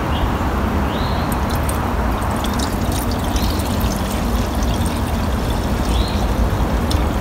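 Two-stroke fuel mix (40:1 gas and oil) poured from a bottle into a string trimmer's plastic fuel tank, a steady trickle of liquid, over a low steady rumble.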